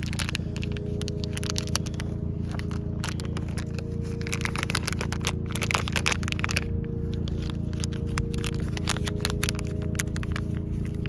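Packaging bag crinkling and crackling as it is handled, with irregular clicks throughout, over a steady low hum.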